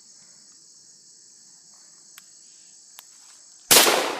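Steady high chirring of crickets, then about three and a half seconds in a single loud shotgun blast that dies away over about a second.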